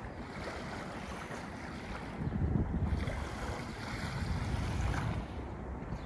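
Wind buffeting the microphone over small waves washing onto a sandy lake shore; the gusts swell about two seconds in and again around four to five seconds.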